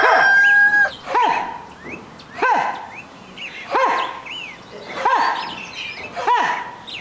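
A rooster's crow trails off with a held note in the first second. Then come five rising-and-falling bird calls about every 1.3 s, with small birds chirping between them.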